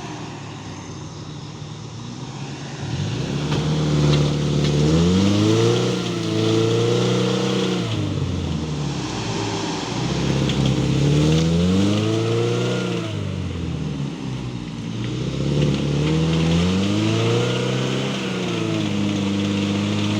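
Off-road 4x4's engine revving hard under load, its pitch climbing and dropping again in several long swells, as the driver works the vehicle back and forth in mud.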